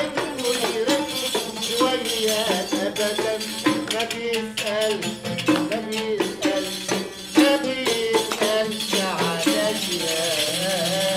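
Egyptian music on an oud, with a riq (frame drum with jingles) keeping a steady rhythm and hands clapping along.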